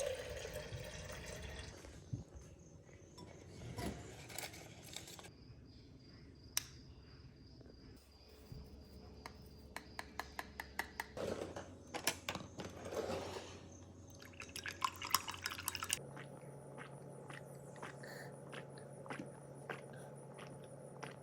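Quiet kitchen handling sounds in short edited clips: dishes and utensils clinking, with runs of small quick taps and some liquid being poured.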